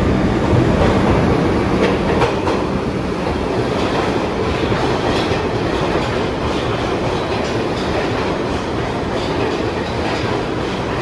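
New York City subway train running on the rails: a loud, steady rumble of wheels on track, with a few sharp clicks over the rail joints about two seconds in.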